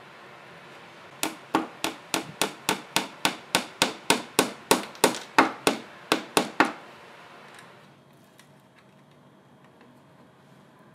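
Hammer tapping a small nail into wood, about twenty quick, even blows at three to four a second, then it stops.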